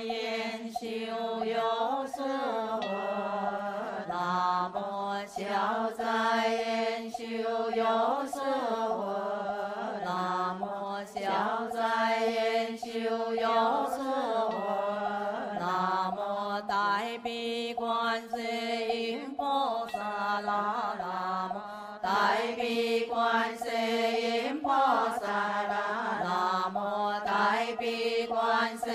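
Group of voices chanting a Buddhist sutra in unison, a slow melodic chant on long held notes that step up and down, with light, regular knocks keeping time.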